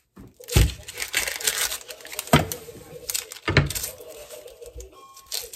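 Kitchen handling sounds at a bamboo cutting board: three sharp knocks of a knife and an onion being set down on the wood, with crinkling and rustling of plastic in between.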